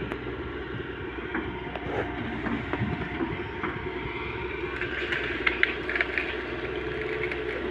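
Tata Hitachi 210 hydraulic excavator's diesel engine running steadily as the boom and bucket work. In the second half there is a run of sharp clanks and cracks.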